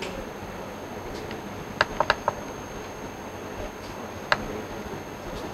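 Four quick clicks about two seconds in and one more a couple of seconds later, from the laptop's mouse and keys as a spreadsheet is worked, over steady room hiss.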